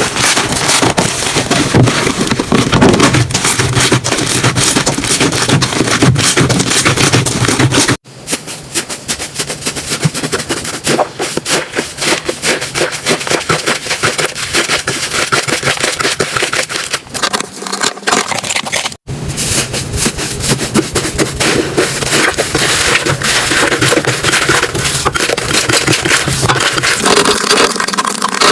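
Slime being squeezed, pressed and stretched by hand, giving dense crackling and popping. It comes in three stretches, with abrupt changes at about 8 seconds and 19 seconds in.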